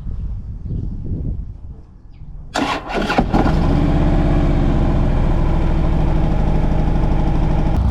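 Motorcycle engine cranked by its starter about two and a half seconds in, catching within a second and settling into a steady idle.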